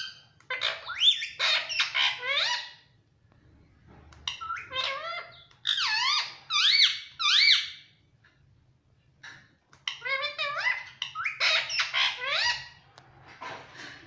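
Indian ringneck parakeet giving quick runs of high, squeaky calls that glide upward in pitch, in three bouts of a few seconds each: one near the start, one about four seconds in and one about ten seconds in.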